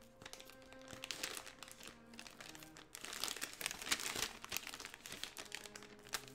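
Thin plastic mailer bag and its packing tape crinkling and rustling in the hands as a cutting knife works through it, in irregular crackles. Faint background music with held notes plays underneath.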